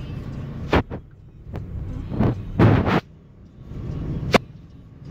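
Knocks and rubbing noises from a handheld phone being moved about: sharp clicks at about one second and near the end, and two loud rustling bursts in the middle. Under them runs the low rumble of the car.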